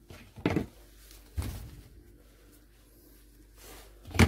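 Kitchen handling sounds: a few short knocks and clatters as food and utensils are handled over a cooking pot, one of them a duller low thud, over a faint steady hum.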